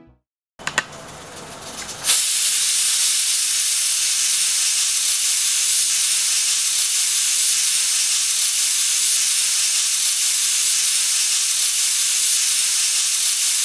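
Aluminium stovetop pressure cooker letting off its whistle: steam hisses out past the lifted weight valve, starting softly and jumping to a loud, steady hiss about two seconds in. The release is the sign that full pressure has been reached, the first of the three whistles the pulao is cooked for.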